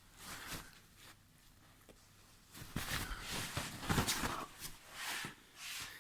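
A dog's paws scuffling and knocking on the floor and bedding as it scrambles about, in a run of short noisy bursts that is busiest from about two and a half to four and a half seconds in.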